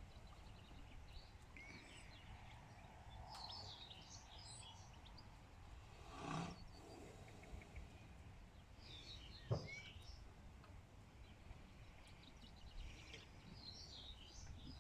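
Faint songbirds chirping in short bursts over a low steady background noise. A short louder noise comes just after six seconds, and a single sharp knock about nine and a half seconds in.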